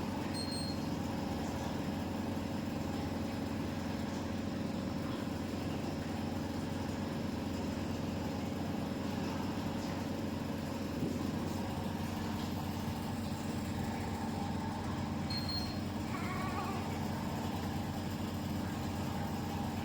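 Steady hum of NICU equipment running, with a short high beep about half a second in and another about fifteen seconds in.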